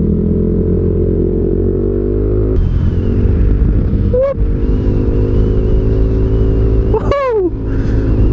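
Yamaha NMAX 155 scooter engine running steadily under way, with wind and road rumble and a faint high whine. A short rising tone about four seconds in and a brief falling tone near the end sound over it.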